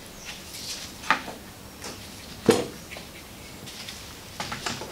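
A few light knocks and clicks of a plastic syringe and containers being handled and set down on a bench. The sharpest knock comes about two and a half seconds in, with a softer one about a second in and small ticks near the end.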